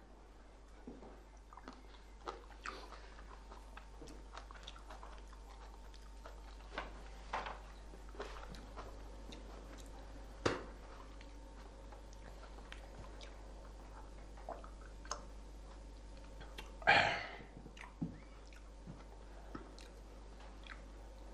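A man chewing and eating a snack from a plate: faint scattered crunches and small clicks, with one louder brief noise about two-thirds of the way through.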